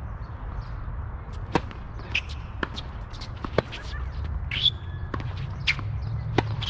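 Tennis rally on a hard court: a string of sharp, hollow pops as the ball comes off racket strings and bounces on the court, starting with the serve about a second and a half in and going on roughly once a second.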